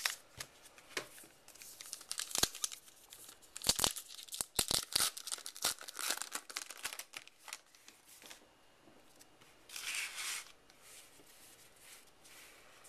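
The wrapper of a pack of 2012 Topps Heritage baseball cards being torn open and crinkled: a run of sharp crackles and rips over several seconds, then a short rustle near the end.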